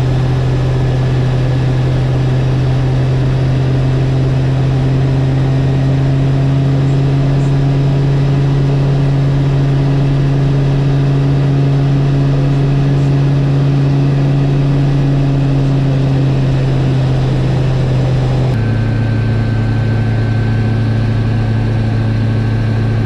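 Turbocharged Rotax 915 four-cylinder engine and pusher propeller of a Niki Kallithea gyrocopter, heard from inside the cabin, running at a steady high power setting during the take-off roll. About 18 seconds in the pitch drops suddenly to a lower steady tone.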